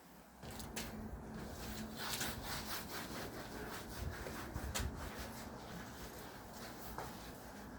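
Repeated irregular scraping strokes, like rubbing or sawing against a hard surface, with a faint steady hum beneath.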